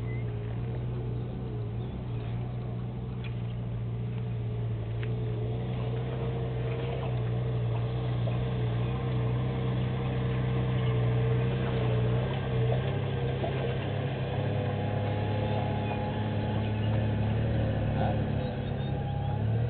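Steady low drone of an engine running, slowly growing a little louder, with a faint wavering higher tone above it.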